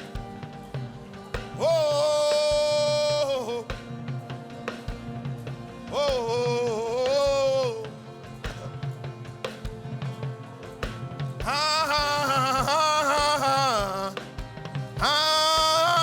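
Background music: a melody in four long held phrases with vibrato, over a steady low pulse.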